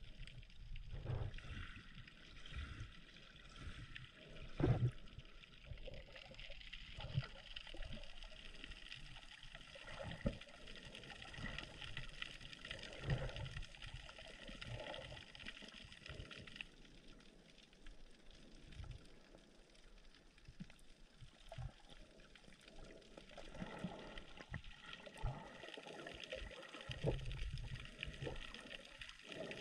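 Water sloshing and gurgling around a snorkeller, with irregular low knocks and thumps, the strongest about five seconds in.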